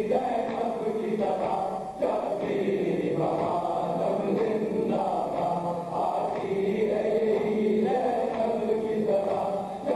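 A man chanting a noha, a Shia mourning lament, in repeated sung phrases about four seconds each.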